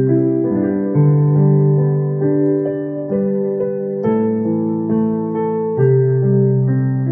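Electronic keyboard playing a slow instrumental ballad: a melody over held chords, with a new bass note every second or two.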